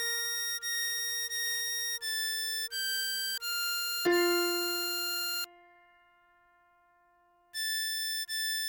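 Instrumental music on a clean, computer-generated harmonica-like tone: two long held melody notes, the second lower, over a repeating pattern of short high notes. The music stops for about two seconds in the middle, then the short notes start again.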